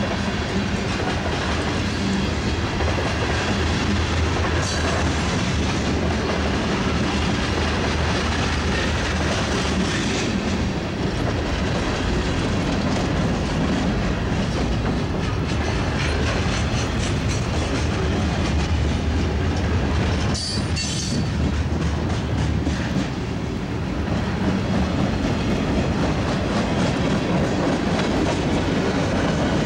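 Freight cars of a long train rolling past at close range, steel wheels clicking over the rail joints in a continuous clickety-clack with a steady rumble. A brief high squeal comes about two-thirds of the way through.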